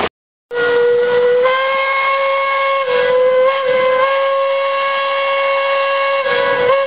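Steam traction engine's whistle blowing one long, loud blast (a "boop"), cutting in about half a second in and holding with slight wavers in pitch.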